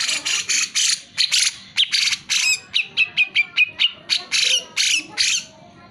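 Cucak jenggot (brown-cheeked bulbul) calling in a rapid run of about twenty loud, harsh notes that starts abruptly and lasts about five seconds. The later notes are shorter and slide downward in pitch.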